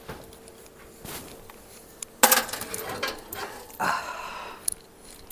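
Oven door opened and a baking dish taken out of the oven. A sharp clank comes about two seconds in, then a scraping rattle a second and a half later, over a faint steady hum.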